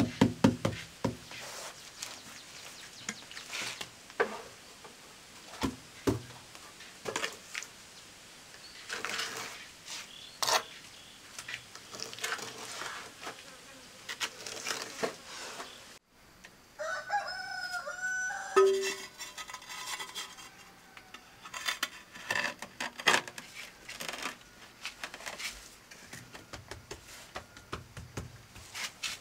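Scattered knocks, taps and short scrapes of hand tools on ceramic tiles and mortar during tile laying. A little over halfway through, a rooster crows once.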